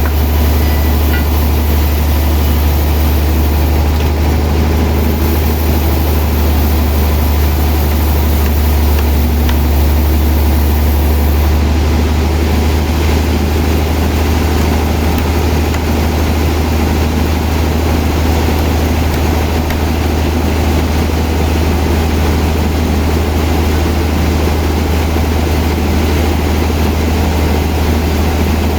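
Sawmill machinery running with a steady, loud low drone.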